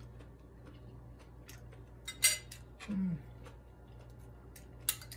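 A metal fork clinking and tapping against a ceramic plate while eating: a few sharp clinks, the loudest about two seconds in, and a couple more near the end.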